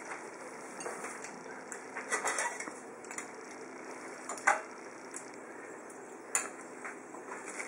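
Metal serving tongs and dishes clinking: a few sharp clinks, the loudest about four and a half seconds in.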